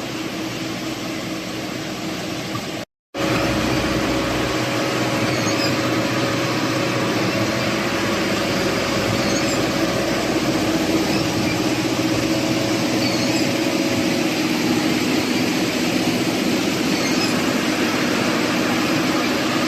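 Machine engine running steadily with a constant hum. It cuts out for a moment about three seconds in, then resumes a little louder.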